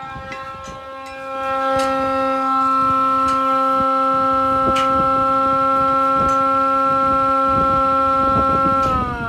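Electric siren sounding one steady, held tone. It swells louder about a second in and slides down in pitch near the end. Wind buffets the microphone underneath.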